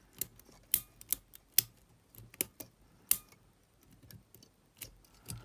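A Sony TCM-450 cassette recorder's metal tape mechanism clicking as it is handled and prodded with a small screwdriver: about seven sharp, irregular clicks.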